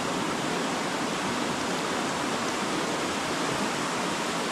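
Steady, even rush of water, with no separate splashes or drops standing out.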